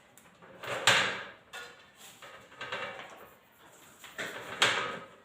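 Hands working with cable and wires: a scrape and rustle about a second in, fainter handling in the middle, and another scrape near the end.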